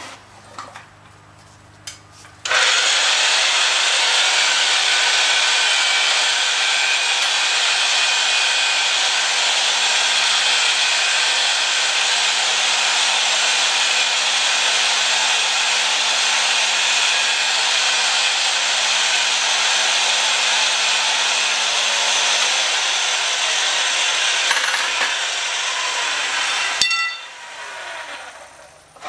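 Oster power pipe threading machine starting up and spinning 1/2-inch black steel pipe while a wheel pipe cutter is tightened down on it, a loud steady metallic scraping hiss over the motor's low hum. The hum drops away a few seconds before the end and the machine stops abruptly.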